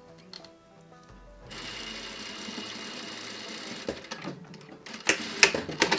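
Sewing machine running for a couple of seconds as it stitches the two ends of a horsehair braid closed, followed by a few sharp clicks and knocks.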